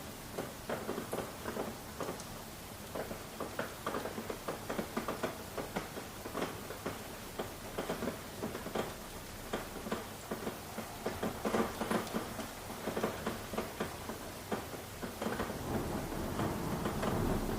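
Rain falling, with many separate drops striking a surface in a dense, irregular patter. A low rumble builds near the end.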